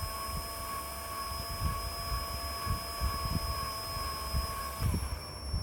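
Electric drill running at a steady speed while a small bit bores a screw hole in the door-handle insert part, done gently. Its whine drops away and stops near the end.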